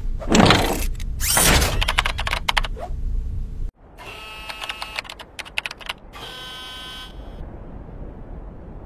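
Cartoon sound effects for a large machine: two sweeping whooshes laced with clicks, a sudden cut, then a rapid clatter of clicks like typing on a keyboard, a short electronic buzz about six seconds in, and a low hum.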